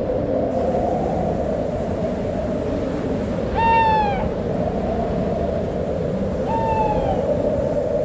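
Winter storm wind blowing steadily, with an owl calling twice, each call a short falling note, about three and a half and six and a half seconds in.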